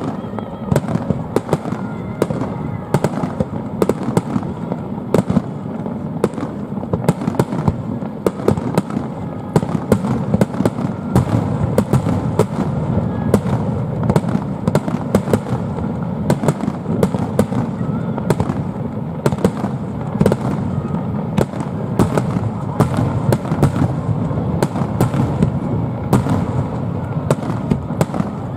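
Fireworks going off in a dense, continuous barrage: many sharp bangs and crackles packed close together over a steady low rumble.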